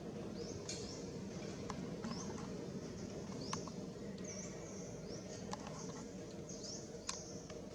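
Baby monkey giving short, high-pitched rising squeaks, repeated about once a second, over a steady low background noise with a few faint clicks.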